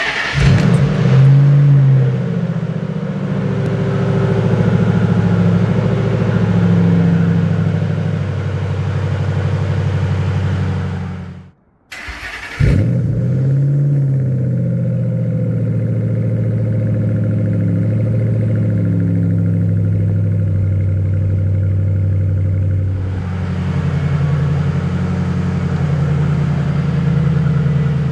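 Ford Mustang's overhead-cam V8 starting and catching with a brief rise in pitch, then idling steadily: a cold first start after winter storage. About twelve seconds in the sound cuts out for under a second, then the engine is heard starting and idling again.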